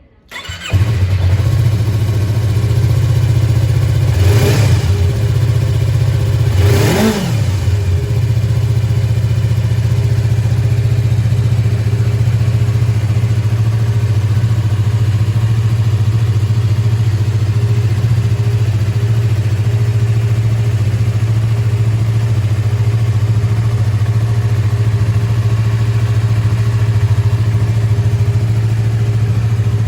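Yamaha YZF-R25's parallel-twin engine with a Beams aftermarket silencer starting up and catching within the first second, then idling. It is blipped twice, about four and seven seconds in, the pitch rising and falling back each time, then idles steadily.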